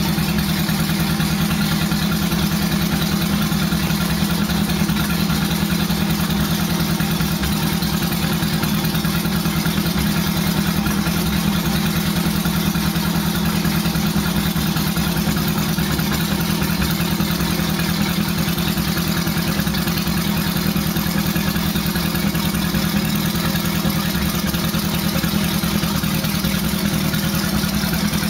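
A 1977 Honda Gold Wing GL1000's flat-four engine idles steadily through a homemade exhaust.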